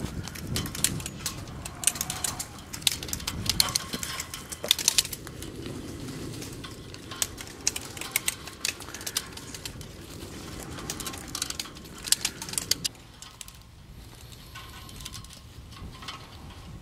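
Sharp clicks and snaps of hand-held vine-tying tools and the rustle of vine canes being bent and tied to trellis wires, in quick irregular clusters, quieter in the last few seconds.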